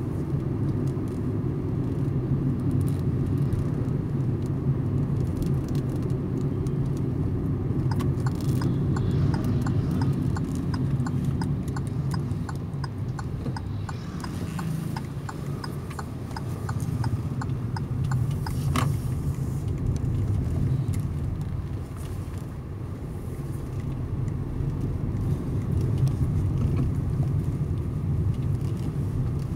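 Car driving, heard from inside the cabin: steady engine and road rumble. For about ten seconds in the middle there is an even, light ticking, and a single sharp click comes about two-thirds of the way through.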